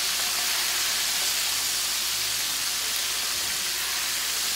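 Battered chicken pieces frying in hot oil: a steady sizzle.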